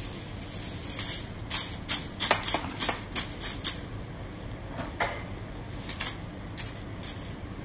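Aluminium foil crinkling and crackling as it is pressed down over a frying pan as a makeshift lid. A quick run of sharp crackles comes in the first half, then a few more near the end.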